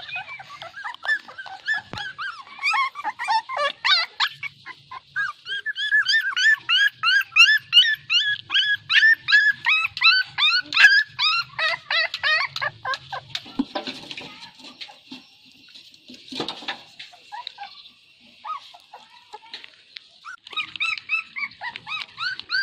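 Puppies whimpering: many rapid, high-pitched squealing whines, overlapping and densest in the middle, then dropping to a few scattered calls before picking up again near the end.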